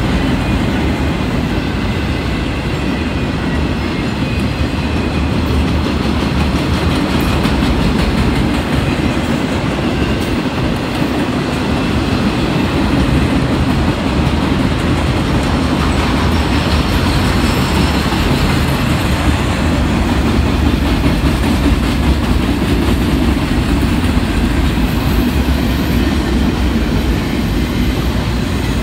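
Freight cars rolling past close by: a loud, steady rumble of steel wheels on the rails.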